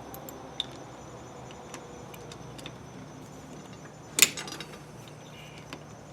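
Light metallic clicks and taps of hand tools loosening the bolts on a small four-stroke engine's cam sprocket, with one sharp metal clank about four seconds in. A faint steady high chirring of crickets runs underneath.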